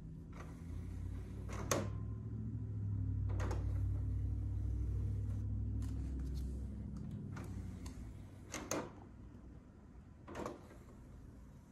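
Disc-tray mechanism of an LG LHB953 Blu-ray home-theatre unit with a faulty CD tray: a low motor hum for several seconds with sharp clicks, then a double click about eight and a half seconds in as the tray shuts.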